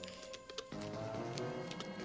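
Film score music that swells and grows fuller about a third of the way through, with faint scattered scratchy clicks as fingernails pick at the tape on an old tin box's lid.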